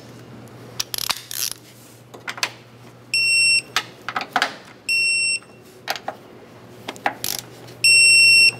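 Digital torque wrench beeping three times, once per nut, as each of the three smaller strut-mount nuts reaches its 16 ft-lb target torque. The first two beeps are short, the third is longer and loudest, near the end, with light clicks from the wrench between them.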